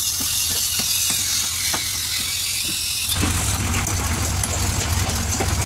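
A hammer knocking on wooden beam shuttering, a string of irregular sharp knocks through the first three seconds. After about three seconds a steady low rumble takes over, with a high hiss throughout.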